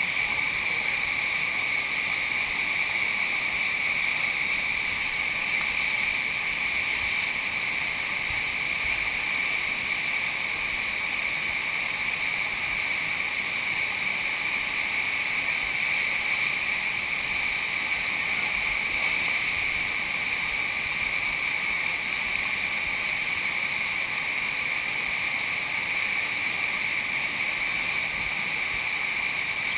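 Steady rush of water pumped over a sheet-wave surf ride, running evenly without a break.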